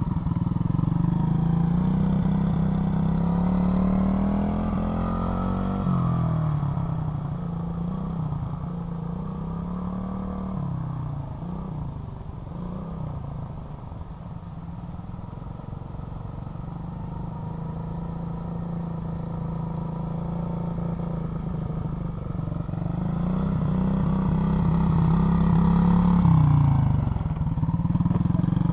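SSR Motorsports 110cc pit bike's single-cylinder four-stroke engine running as it is ridden, its pitch rising and falling as the throttle is opened and eased off. It fades as the bike moves away around the middle and grows louder again as the bike comes back near the end.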